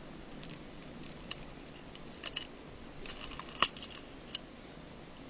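Small tool levering a little antenna part off an iPhone 5's metal case: scattered light clicks and ticks at irregular intervals, the sharpest about two thirds of the way in.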